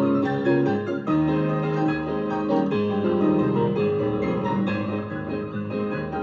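Piano music: a keyboard playing held chords and melody notes.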